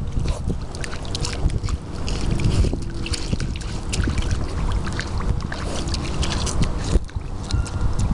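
Wind buffeting the microphone with a steady low rumble, over scattered small clicks and crunches of gravel underfoot.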